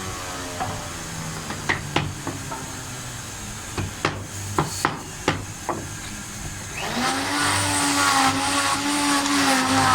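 A series of sharp, separate knocks, like hammering on wood, for about the first seven seconds. Then a machine starts abruptly and runs with a steady hum and hiss.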